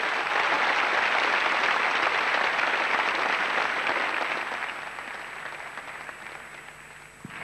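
Large audience applauding in a hall, loud at first and dying away from about four and a half seconds in.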